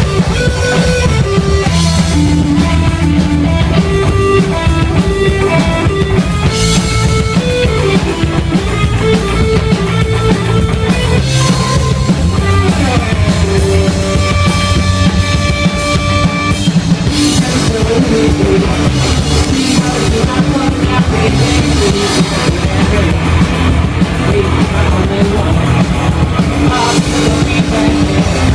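Live punk rock band playing loudly: driving drum kit with electric guitar and bass, with a stretch of long held notes about halfway through.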